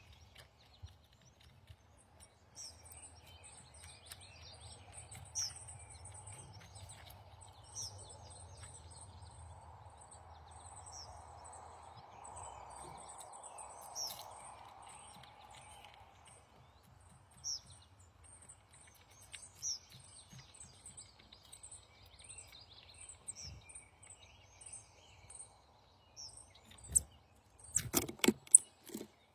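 Small birds calling: a short, sharp, high chirp repeats every two or three seconds over a faint, rapid run of very high thin notes. A soft steady noise swells and fades in the middle, and several loud sharp clicks come near the end.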